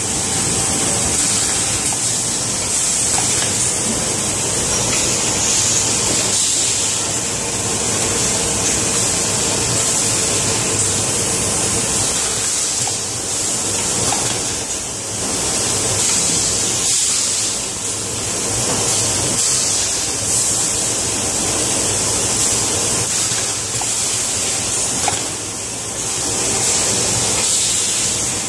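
Automatic bottle filling and foil sealing machine running: a steady hiss over a low hum.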